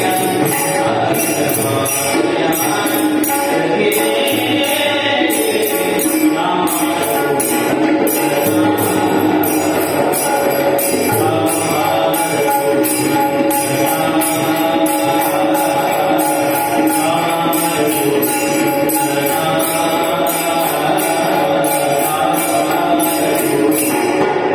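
Devotional bhajan music: a chant-like melody over a steady rhythm of jingling percussion.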